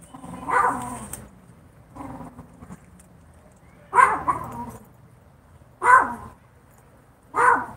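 A dog barking: five single barks spaced about one and a half to two seconds apart, the second one fainter.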